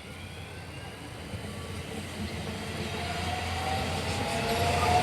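Electric train running along the platform, growing steadily louder, with a motor whine that rises slowly in pitch in the second half as it picks up speed.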